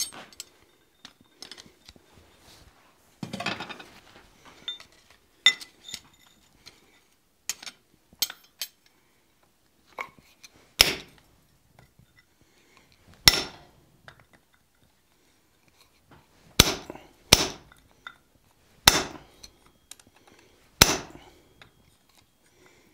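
Hammer striking a slot punch into a red-hot flat steel bar on the anvil: six single blows spaced a couple of seconds apart, starting about eleven seconds in. Before that, light clinks and knocks of metal tools.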